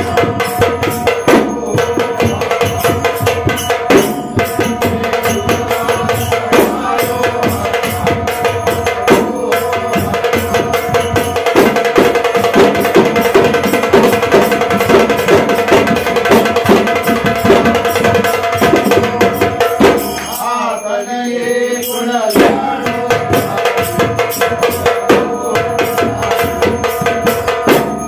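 Ghumat arati: a group of men singing a devotional arati chant over hand-played ghumat clay-pot drums and a drum beaten with thin sticks, in a steady dense rhythm. The drumming thins out briefly about two-thirds of the way through, then resumes.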